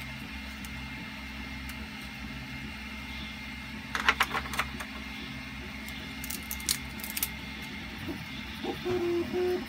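Clicks and light clatter of 3D-printed plastic door panels being handled and pressed into a door opening in a printed R2-D2 body frame, loudest about four seconds in and again around six to seven seconds, over a steady low hum. A few short humming tones come near the end.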